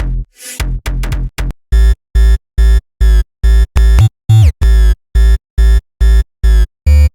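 Electronic music: a soft stuttering start, then loud, evenly chopped synth and bass stabs at about two to three a second, with a quick falling swoop near the middle.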